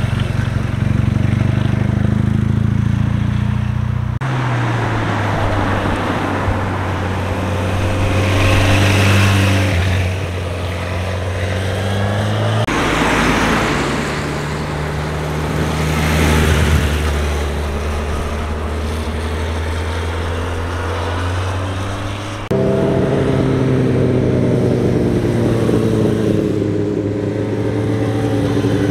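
Motorcycle engines passing one after another through a hairpin bend. Each bike's engine note rises and falls as it leans through the turn, and the sound changes abruptly from one bike to the next three times. A BMW GS adventure bike is at the start, and a Suzuki GSX-R sportbike with a higher note is near the end.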